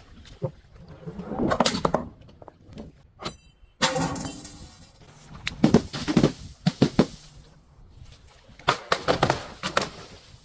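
Things being broken and smashed: several clusters of sharp cracks and knocks, each lasting about a second, with a rushing, crunching stretch about four seconds in.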